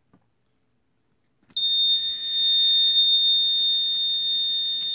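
Early-1980s magnetic window alarm sounding: a loud, steady high-pitched tone that starts abruptly about a second and a half in and holds. The alarm is tripped by parting the magnet from its contact switch.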